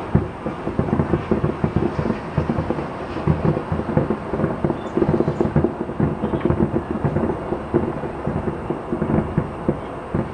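Aerial fireworks shells bursting in rapid succession, several booms a second merging into a continuous rumble.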